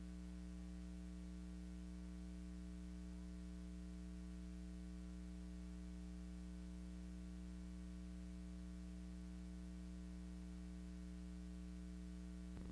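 Steady electrical mains hum with faint hiss on an otherwise empty soundtrack. The hiss grows a little near the end.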